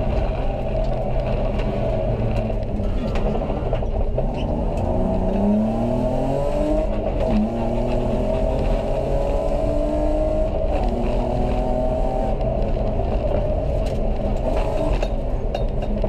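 Rally car engine heard from inside the cabin at full speed, its pitch climbing as it revs up and dropping back at each gear change, over steady road and tyre noise with a few sharp clicks.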